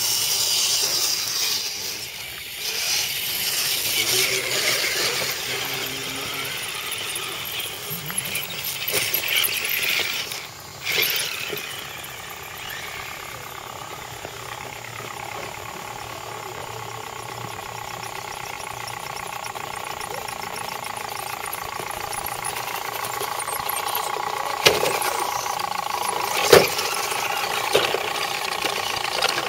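Electric motors and gear trains of RC scale crawler trucks whining as they drive slowly along a dirt trail, a steady whine that grows clearer in the second half, with a couple of sharp clicks near the end.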